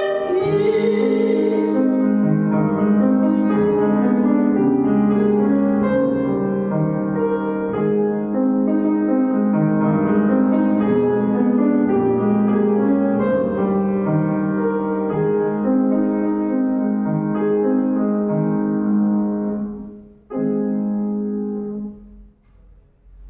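Piano playing a classical passage of steady, repeated chords, closing on a final chord about twenty seconds in that rings and dies away.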